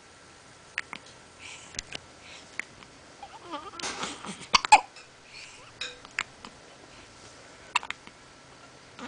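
Hiccups: short, sharp catches recurring every second or two, with a brief wavering vocal sound about halfway through.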